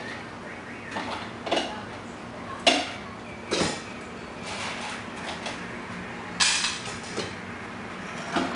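Dishes and utensils being handled at a counter: a string of separate clinks and knocks of crockery and cutlery, a second or so apart, some ringing briefly, over a low steady hum.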